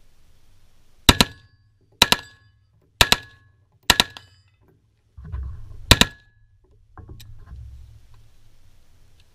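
AR-15/M16-style rifle fired in quick pairs of shots, about one pair a second for four pairs, then one more after a short pause.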